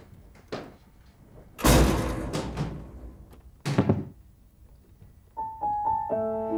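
A few knocks and thuds of a door and luggage being handled, the heaviest about a second and a half in and another about two seconds later. Soft piano music begins near the end.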